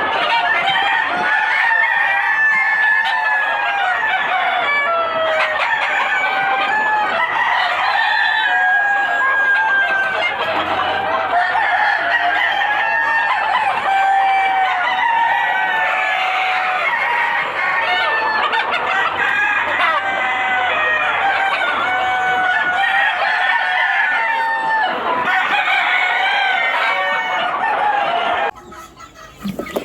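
A flock of desi chickens calling and clucking over one another, many birds at once, loud and continuous, until the sound cuts off suddenly near the end.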